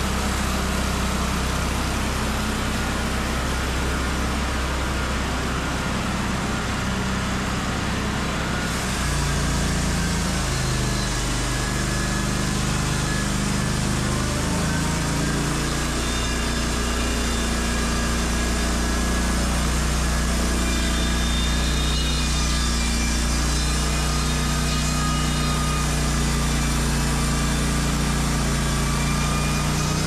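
Wood-Mizer LT35 band sawmill running steadily as its saw head passes along a red oak quarter log. About nine seconds in the engine note shifts and a higher hiss joins it, as the band blade works through the cut.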